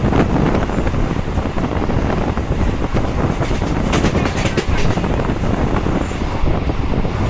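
Passenger train running at speed, heard from an open coach doorway: a steady rumble of wheels on the rails, with a quick run of sharp clacks about four seconds in.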